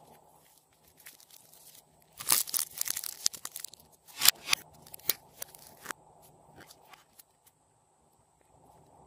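Plastic zip bag crinkling and rustling as soft pink clay is squeezed and pulled out of it, in two busy bursts of about a second and a half each.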